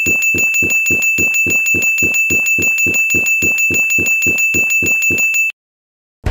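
Animation sound effect: an even, rapid run of thuds, about five a second, under a steady high ringing tone, which cuts off abruptly; it goes with a Lego brick building appearing.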